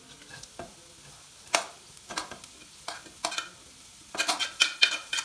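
A spoon stirring vegetables frying in oil in a kadhai: irregular clinks and scrapes against the pan over a faint sizzle, the clinks coming thick and fast near the end.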